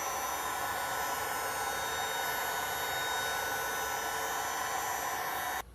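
Heat gun running steadily, blowing hot air over the phone to soften the screen adhesive, then switched off abruptly at the very end.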